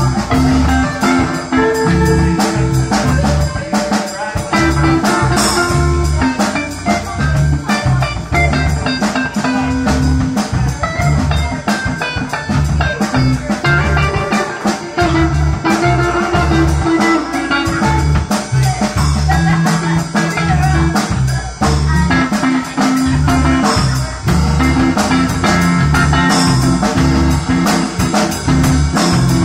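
Live band playing an instrumental: two amplified electric guitars over a drum kit, with a steady beat throughout.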